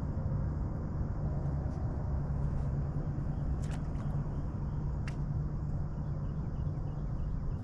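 A boat motor humming low and steady, with a couple of faint sharp clicks partway through.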